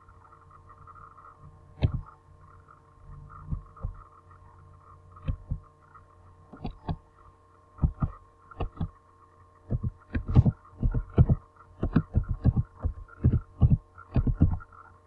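Computer keyboard keys being typed: irregular clicks, sparse at first and coming quickly from about halfway, over a steady electrical hum.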